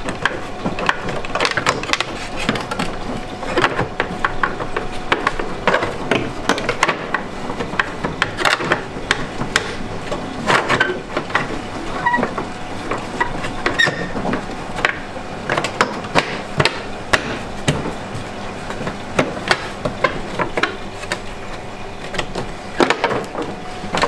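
Lower front plastic panel of a washing machine being pushed and knocked back into place: irregular clicks and knocks of plastic on the machine's metal front as the panel is worked onto its mounting tabs.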